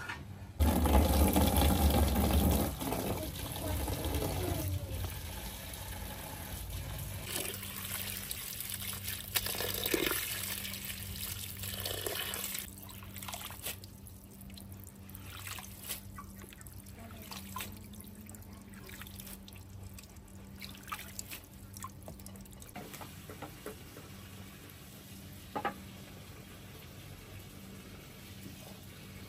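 Running water splashing and pouring, strongest in the first couple of seconds and going on more softly for about twelve seconds. After that it is quieter, with scattered small clicks.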